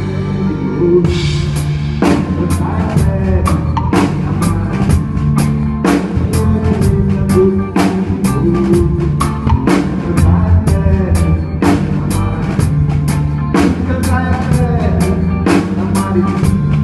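Live band playing a groove during a sound check: drum kit with kick and snare hits at a steady pace over electric bass notes.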